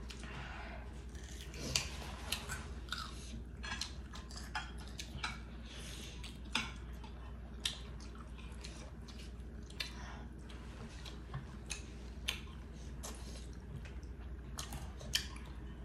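Close-up eating sounds: chewing and wet lip smacks, with scattered short clicks, as rice and curry are eaten by hand and with a spoon. A steady low hum lies underneath.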